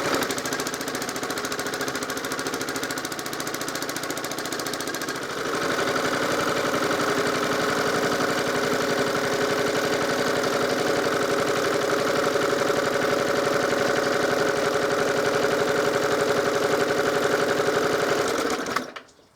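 Suffolk Super Colt lawnmower engine running steadily, picking up to a higher, louder speed about five and a half seconds in, then cutting off suddenly near the end. The blades stay still: the centrifugal clutch is slipping and getting hot, which the owner takes for shoes that come out but do not bite.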